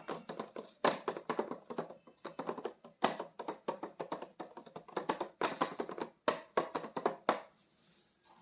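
Hands handling a plastic action figure and its packaging: dense, irregular plastic clicks and crackles that stop about seven seconds in.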